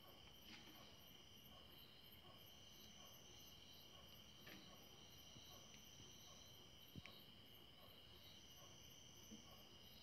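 Near silence: faint steady high-pitched ringing and chirring in the background, with a few faint ticks, the clearest about seven seconds in.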